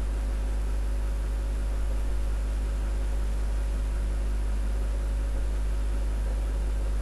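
Steady low electrical hum with an even hiss, unchanging throughout: the recording's own background noise, with no other sound.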